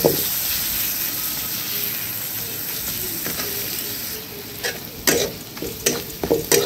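Onion-and-spice masala sizzling as it fries in a metal kadai, stirred with a flat spatula, at the stage where it is fried well to drive off the raw smell of the masala. The sizzle is steady, then about four and a half seconds in it softens and the spatula gives a quick run of scrapes and knocks against the pan.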